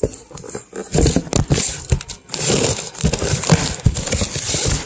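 Packaging being crinkled, rustled and torn open by hand as a box is unpacked, a dense run of crackles and short scrapes close to the microphone.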